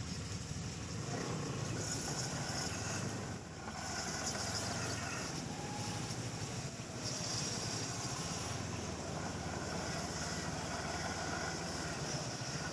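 Snowmobile engine running steadily while driving over snow, a low drone under a high hiss, easing off briefly about three and a half seconds in.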